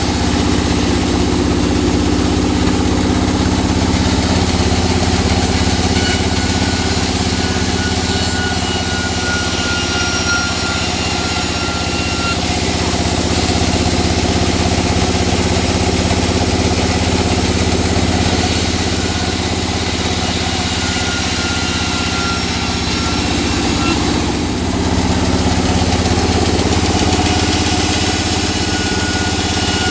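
Engine-driven sawmill running steadily while sawing teak, a continuous machine drone. A faint high whine slides slightly downward twice, near the middle and again later.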